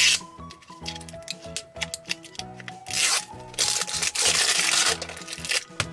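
Background music with a steady run of notes, over the crinkling and tearing of wrapping being peeled off an L.O.L. Surprise ball by hand. The tearing is loudest from about three seconds in until just before the end.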